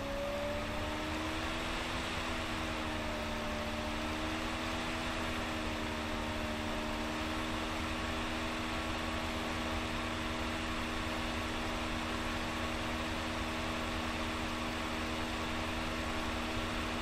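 Steady hum of a fan or small motor over a hiss; its pitch wavers a little in the first few seconds, then holds steady.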